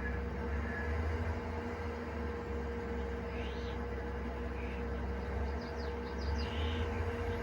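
Massey Ferguson Hesston 9635 swather running steadily as it cuts hay, a constant low drone with a steady tone. Birds chirp over it from about three seconds in, with a quick run of short calls near the end.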